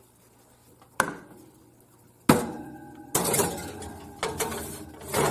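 A glass baking dish being put into an oven: a click, then a louder knock, then the glass scraping and clinking against the metal oven rack as it slides in.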